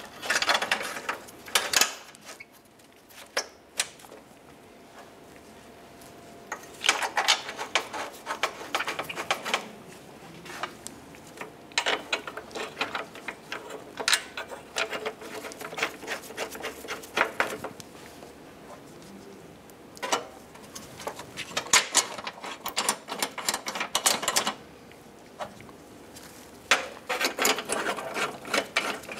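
Bolts being started by hand onto the steel mounting bracket of a pickup's front bumper: several bursts of rapid clicking, each a second or two long, with quieter handling noise between.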